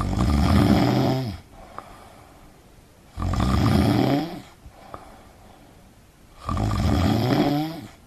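A person snoring: three loud, rattling snores, each a little over a second long, about three seconds apart.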